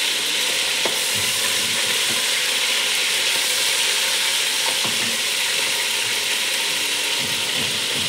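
Pieces of rabbit sizzling steadily as they fry in hot oil in a stainless steel pot, stirred with a wooden spatula that knocks against the pot a few times.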